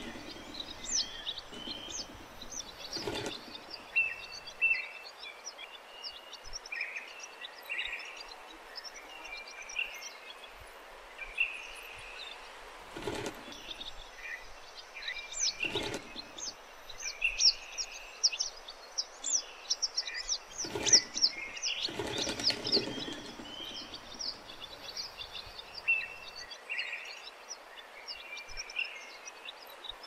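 A flock of barn swallows twittering: a busy stream of short, high chirps and quick falling notes, thickest in the middle of the stretch. A few brief whooshes of noise break in now and then.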